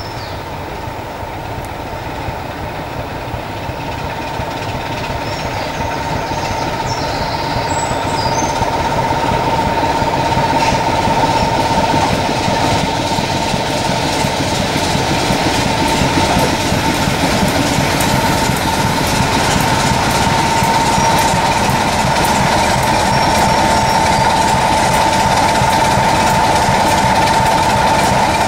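BR Class 26 diesel locomotive with its Sulzer engine, hauling coaches along a station platform. It gets steadily louder as it draws near over the first ten seconds or so, then runs loud at close range with a steady high whine throughout.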